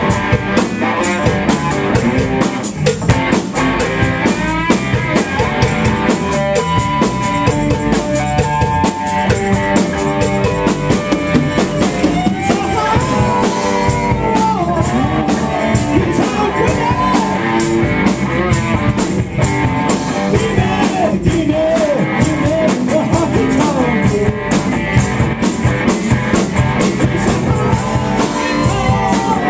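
Live rock band playing loudly, with electric guitars and a drum kit keeping a steady beat.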